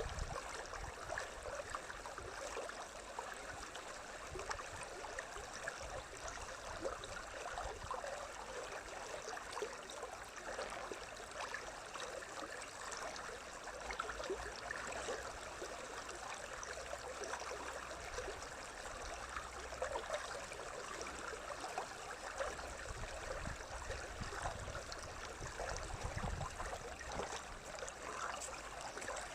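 A stream flowing with a steady babbling rush of water, and a few low rumbles in the last few seconds.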